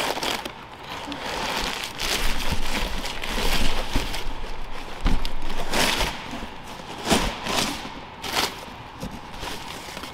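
Packing material and a cardboard box being handled while parts are unpacked: irregular rustling and crinkling with several dull thumps and knocks.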